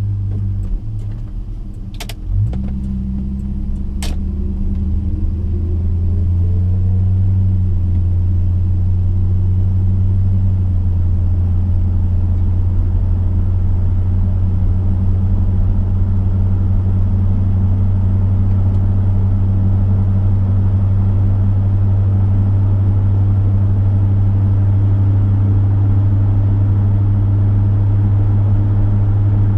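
Chevrolet V8 car driving on the road, heard as a steady low engine drone. A couple of sharp clicks come in the first four seconds, then the engine note rises as the car picks up speed over the next few seconds and settles into an even drone at cruising speed.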